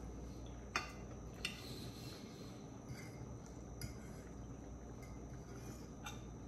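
Metal forks clinking against ceramic plates while eating: a handful of separate sharp clinks, two about a second in and a few fainter ones later, over a quiet background.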